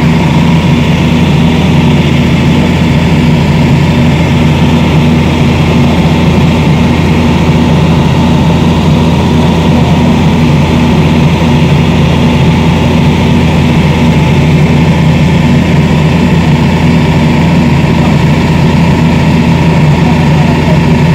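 Hitachi hydraulic excavator's diesel engine running steadily at close range, with an even low drone and no change in speed.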